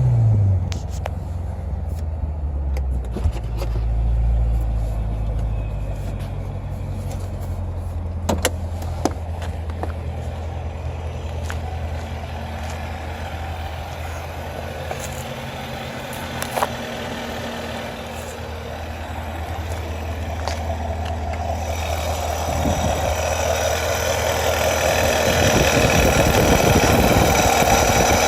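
Supercharged 6.2-litre V8 of a C7 Corvette Stingray, fitted with a ProCharger, idling steadily after a rev, with a few scattered clicks. In the last several seconds the engine note rises and grows louder.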